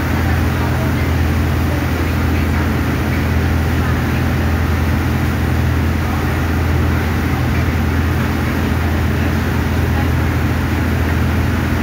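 Steady low drone of a riverboat's engines under way at cruising speed, with wind and water rushing past the hull.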